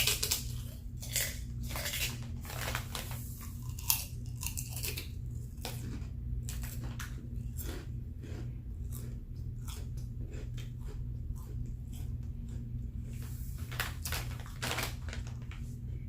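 Crunchy fried pork skins being bitten and chewed: a long run of crisp, irregular crunches, loudest at the start and about four seconds in.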